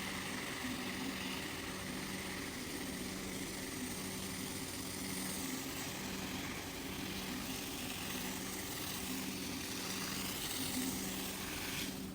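Motor-driven carpet cleaning machine running steadily: a low hum under a broad hiss, cutting off abruptly near the end.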